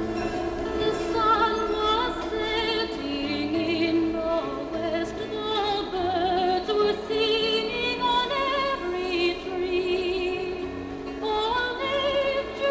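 Soundtrack music: a classical, operatic-style singing voice with wide vibrato, moving through sustained notes over instrumental accompaniment.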